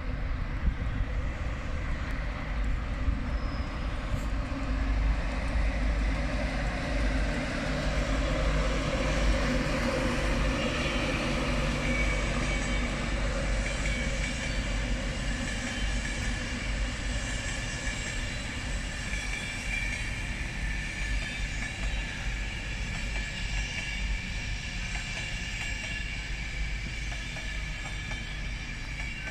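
LNER Class 91 electric locomotive and its coaches rolling slowly past at a station platform: a steady rail running sound, with a high whine joining it from about ten seconds in.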